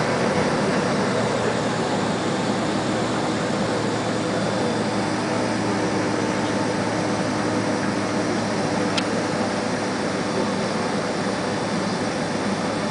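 Steady airliner cabin noise inside a Boeing 767 on the ground after landing: an even rush of air and machinery hum with faint steady tones. A short click about nine seconds in.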